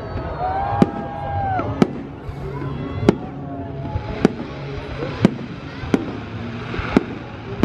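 Aerial firework shells bursting overhead: about seven sharp bangs, roughly one a second, with crackling between them in the second half.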